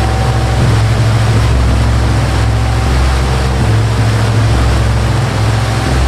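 Large waterfall rushing steadily, a continuous dense hiss of falling water, over low deep tones that shift pitch every second or two.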